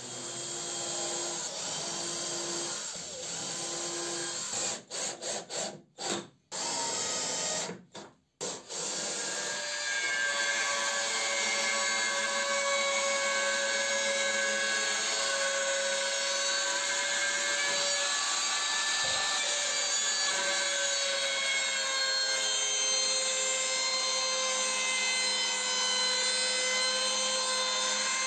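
Power tool running on wood: mixed working noise that cuts out abruptly several times, then from about a third of the way in a steady, even motor whine.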